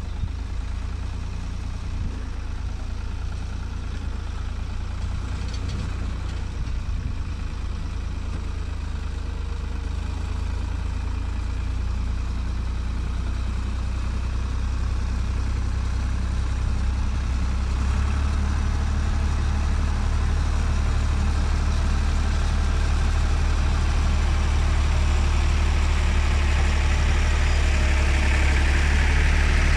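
Ford 3600 farm tractor's three-cylinder diesel engine running steadily under load while skidding a log, getting louder as the tractor comes close.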